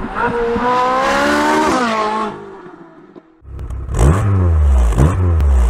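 Nissan 350Z's 3.5-litre V6 revving through its Gemini V1 exhaust: one rev climbing over the first two seconds, then, after a brief dip, two quick throttle blips.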